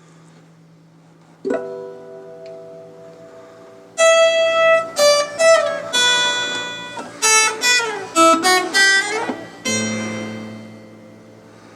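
1950s Berera Venezia 3/4-size acoustic guitar (spruce top, beech sides, maple back) with silk-and-steel strings being played. A chord is struck about a second and a half in and left ringing. From about four seconds in comes a quick run of single notes with some sliding pitches, ending near ten seconds on a low chord that rings out.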